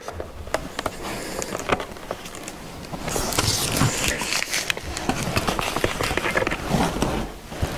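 Close handling noise: rustling and scraping with scattered small clicks as a sticker is peeled off a plastic helmet shield and the helmet is handled on the head. The rustle grows louder and brighter about three seconds in.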